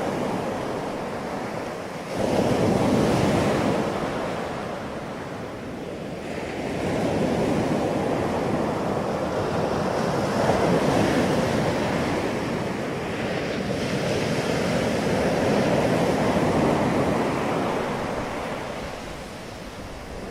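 Ocean surf breaking and washing up a sandy beach, swelling and ebbing in long surges with wind on the microphone.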